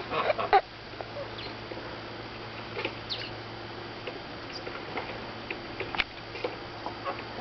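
Scattered short bird chirps and small clicks, with a brief louder flurry at the very start, over a low steady hum.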